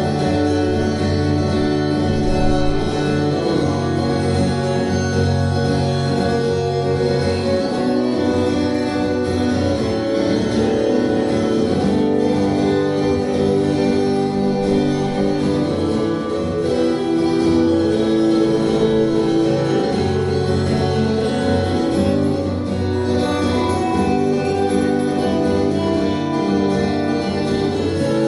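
Two acoustic guitars playing a live instrumental duet, one picking the melody over the other's chords and bass line.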